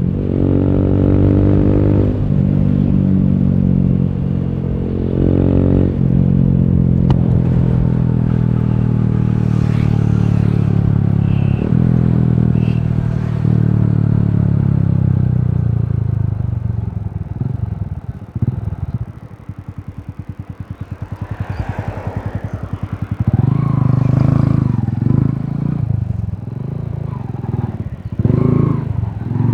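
Yamaha YBR 125G motorcycle's single-cylinder four-stroke engine under way. The pitch climbs through the gears, with a short dip at each shift. It then falls away as the bike slows to a low idle about two-thirds through, and revs up again near the end.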